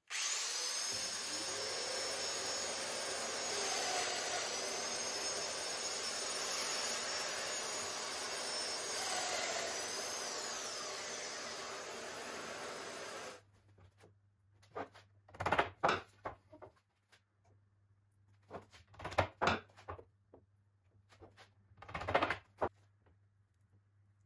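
Handheld power tool running with its dust extractor, a steady whirring rush whose pitch dips briefly twice under load, then shutting off suddenly after about thirteen seconds. Three short clusters of knocks and rattles follow.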